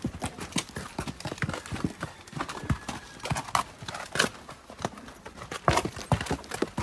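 Horses walking, their hooves clip-clopping in an uneven run of knocks.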